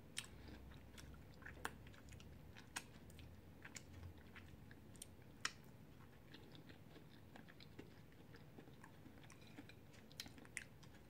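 Faint chewing of Flamin' Hot Cheetos-crusted chicken wings, with scattered small mouth clicks and smacks.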